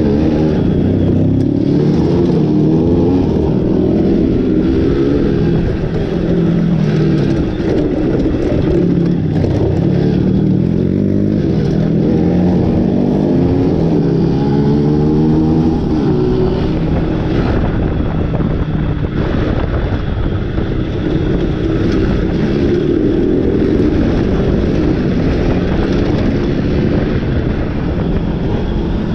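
Motorcycle engine running under way. Its pitch rises and drops back again and again as it accelerates and shifts through the gears.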